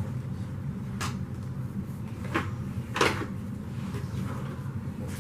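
A few short knocks and clunks from handling the upright vacuum's plastic parts and packaging: three distinct knocks, the loudest about three seconds in, over a steady low hum.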